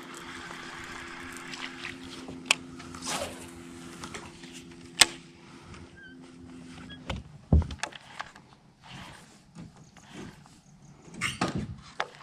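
A small motor on the boat humming steadily, cutting off about seven seconds in, with scattered knocks and clicks of handling in the boat, the sharpest about five and seven and a half seconds in.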